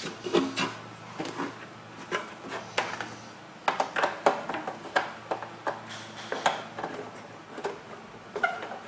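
Irregular plastic clicks and knocks from a tail light assembly and its bulb wiring being handled and fitted into the rear corner of a 2009 Honda Odyssey. The clicks come closer together from about halfway in.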